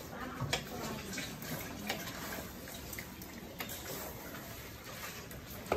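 Pork pieces in soy sauce being stirred and turned in a hot steel wok, with a steady wet sizzling hiss. A few sharp clinks of the utensil against the wok come through it.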